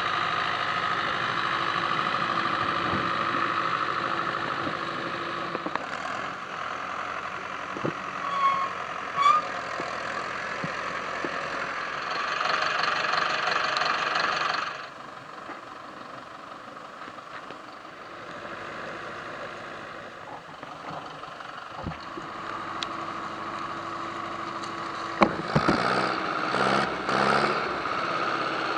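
Ursus C-360 tractor's four-cylinder diesel engine running steadily while pulling a soil implement through a field. The level drops about halfway through, and a few sharp knocks come near the end.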